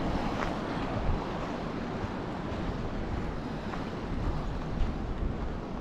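Wind buffeting the microphone: a steady rushing noise with low rumble, with a few faint ticks.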